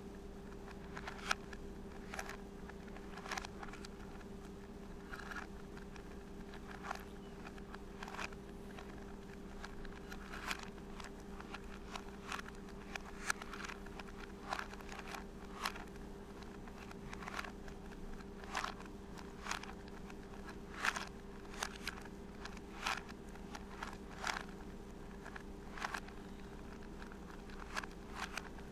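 3x3 Rubik's cube being turned fast by hand during a solve: an irregular run of plastic clicks and clacks as the layers snap round, some sharper than others, over a steady low hum.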